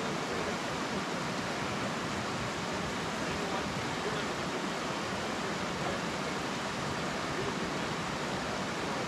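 Steady rushing of a rocky creek, an even hiss with no change in level.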